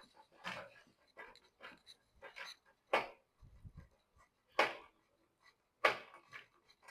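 Hand screwdriver tightening screws into a metal door closer, giving irregular short scraping strokes; the loudest three come about 3, 4.5 and 6 seconds in.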